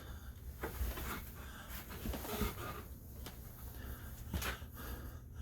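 A man's breathing between sentences, with a few faint clicks and a low steady hum underneath.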